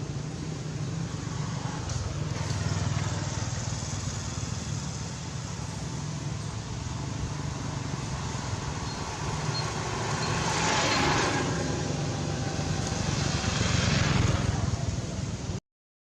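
Motor vehicle engine running with a steady low hum, with louder swells of noise twice in the second half, as of vehicles passing. The sound cuts out briefly just before the end.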